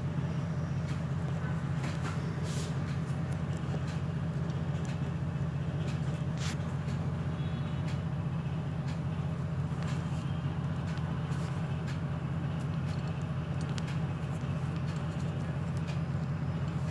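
A steady low mechanical hum, unchanging throughout, with a few faint clicks and taps.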